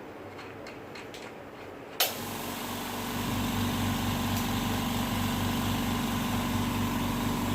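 Faint clicking, then about two seconds in a sharp click and a steady engine idling with a low, even throb.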